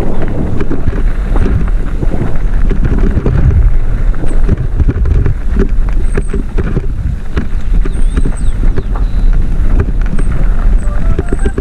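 Mountain bike descending a dirt trail: wind buffeting the microphone, tyres rumbling over the ground and the bike rattling with frequent knocks. A few rising notes of music come in near the end.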